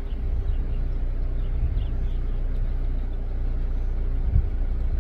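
Steady low rumble of wind buffeting the microphone in the storm's gusty winds.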